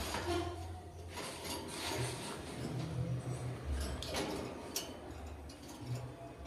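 Irregular small clicks and clinks of a lovebird pecking at corn, over a low hum.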